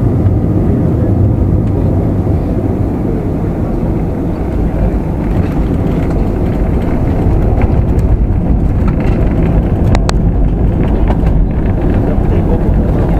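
Jet airliner cabin noise while the plane rolls along the ground: a steady low rumble of the engines and wheels. A few brief clicks or rattles come about two-thirds of the way through.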